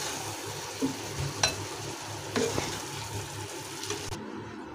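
A wooden spatula stirs and scoops thick mashed eggplant bharta in a hot pan, with a steady low sizzle and a few light knocks. The sizzle stops about four seconds in.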